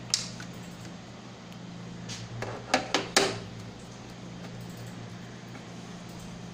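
A few sharp clicks and knocks of small hard objects being handled: one just after the start, then a short clatter of three in quick succession about three seconds in, over a steady low electrical hum.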